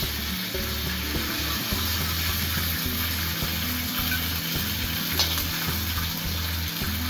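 Chicken pieces sizzling steadily in hot cooking oil in a stainless steel wok, with a metal spoon scooping through the oil. Background music with a steady bass line plays underneath.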